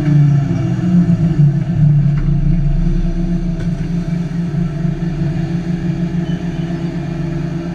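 Hyundai 380 long-reach excavator's diesel engine running steadily under load, with a low rumble. It eases off slightly toward the end.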